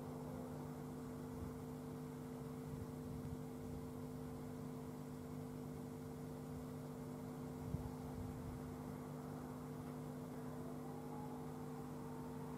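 Steady low hum made of several constant tones under a faint hiss, with a single soft knock about eight seconds in.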